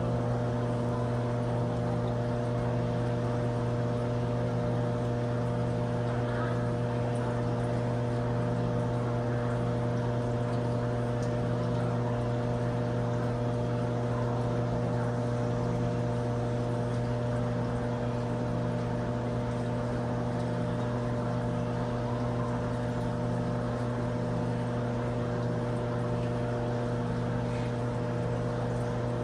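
Aquarium pump humming steadily with a constant electrical drone, over a faint wash of moving water.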